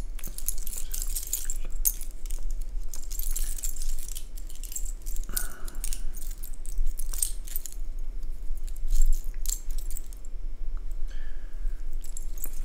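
A bunch of small metal Zipfel pendants clinking and jingling against each other as they are turned over by hand, with a brief lull near the end.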